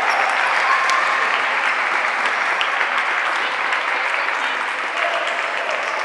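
Spectators applauding at a youth basketball game, steady clapping that slowly eases off.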